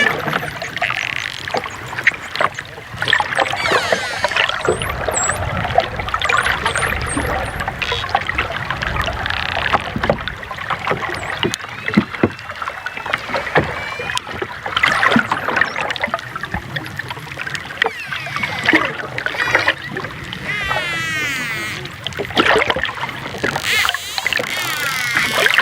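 Dolphins whistling and clicking: several wavering whistles that sweep up and down in pitch, with a few very high chirps, over a frequent run of sharp clicks and a low steady rush.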